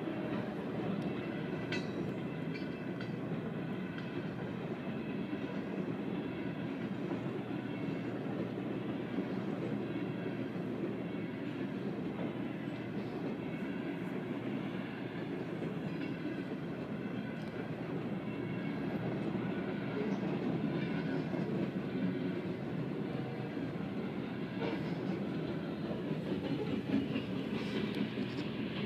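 Coal train cars rolling steadily past on the rails at a grade crossing.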